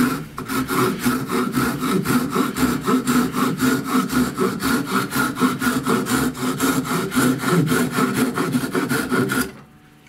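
Folding pruning saw cutting through a thin round piece of wood held in a bench vise, in fast, even back-and-forth strokes that stop abruptly near the end as the thin disc comes off.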